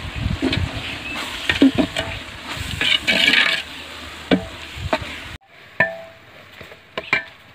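Long metal ladle stirring and scraping frying onion-tomato masala with ginger-garlic paste around a large aluminium pot, with clinks of metal on the pot and sizzling from the oil. The sound drops off abruptly about five seconds in, leaving a few faint clicks.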